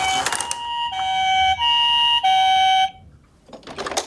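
Toy ambulance minicar's electronic two-tone siren, alternating a high and a low note (the Japanese "pee-po" ambulance pattern), cutting off about three seconds in. A brief clatter follows near the end.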